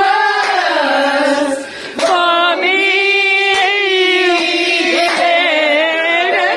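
Singing into a microphone: a voice holding long, wavering notes, with a short break about two seconds in.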